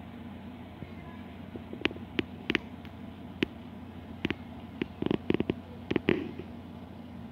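Steady low hum with about a dozen sharp, irregular clicks and taps from about two to six seconds in.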